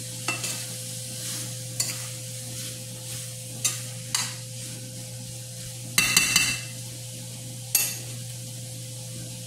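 Bitter melon and tomato sizzling in a stainless steel skillet while a metal spoon stirs them. The spoon scrapes and clinks against the pan about half a dozen times, loudest in a ringing clatter about six seconds in, over a steady hum.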